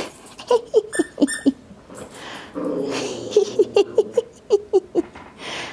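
Small dogs growling and grunting in play while they scuffle over a plush toy, in short pitched bursts with a longer growl near the middle.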